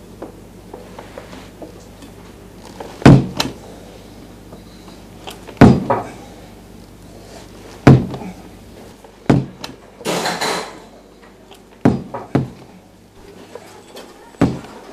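A run of loud bangs and thuds, about eight of them a second or two apart, as things are hit and thrown about a room, with a longer crashing clatter about ten seconds in.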